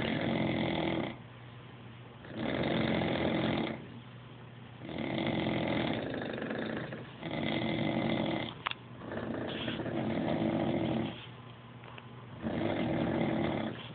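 Snoring from more than one sleeper in step with each other: loud snores about every two and a half seconds, each lasting a second or more, with quieter breathing between and a short click about two-thirds of the way through.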